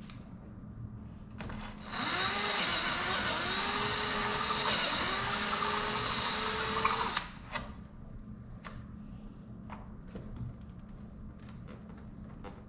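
Cordless drill running for about five seconds, its pitch climbing three times, as the bit wallows out a slightly undersized mounting hole. Light clicks and taps follow after it stops.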